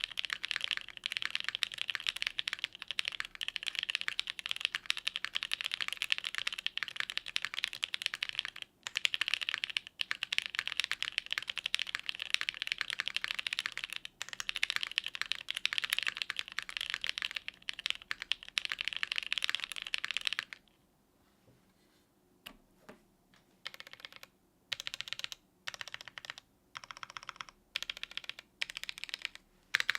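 Fast continuous typing on a plateless, gasket-mounted custom mechanical keyboard with Gateron Cream Soda linear switches and GMK keycaps, a dense run of keystrokes. About two-thirds of the way through the typing stops for a few seconds with only a couple of lone clicks, then resumes in short bursts separated by brief gaps.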